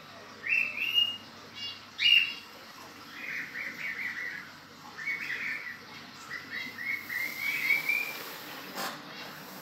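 Small pet birds chirping: sharp high calls about one and two seconds in, then runs of quick repeated notes.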